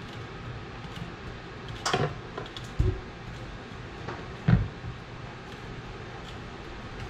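Light knocks and taps as a fork pricks a Japanese sweet potato on a plastic cutting board, a few scattered strikes with the loudest about two, three and four and a half seconds in, over a steady low background hum.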